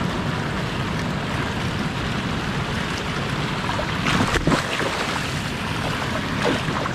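Steady rush of river water pouring over a dam spillway. A few splashes about four seconds in and again near the end, as a released musky kicks off from the hand at the water's edge.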